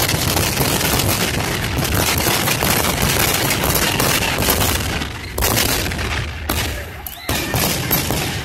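Aerial fireworks going off in a rapid barrage of bangs and crackling, thinning out in the last three seconds to a few separate booms.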